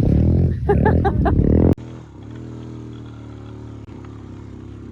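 ATV engine running steadily, with a loud voice over it at first; about two seconds in the sound cuts off abruptly to a quieter, even engine hum.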